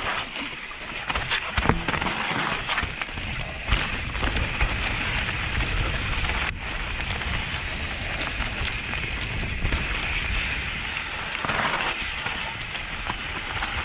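Mountain bike tyres rolling fast over dry leaf litter, rocks and roots: a continuous crackling rustle with rattling from the bike. Several sharp knocks come as it hits bumps.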